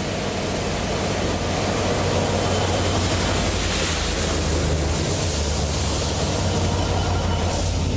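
Railhead treatment train passing close by: a steady hiss of water jets spraying the rails over the low running of its diesel locomotive. It grows louder over the first couple of seconds, then holds.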